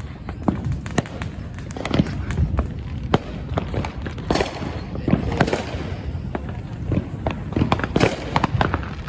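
Fireworks going off, a rapid, irregular string of sharp bangs and pops over a steady low rumble.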